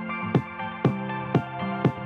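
Background music with a steady beat, about two beats a second, over sustained notes.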